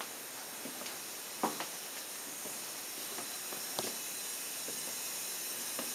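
Steady hiss, with a few faint short knocks, the loudest about one and a half seconds in and another near four seconds.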